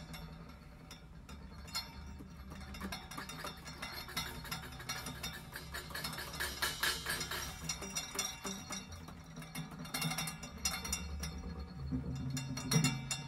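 Quiet percussive music: a dense run of light taps and clinks, busiest towards the middle and again later on.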